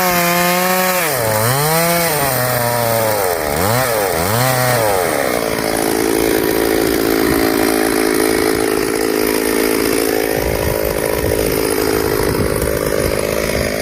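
Two-stroke chainsaw running at high revs. Its pitch dips sharply and recovers twice in the first five seconds, then it runs steadily while cutting wood.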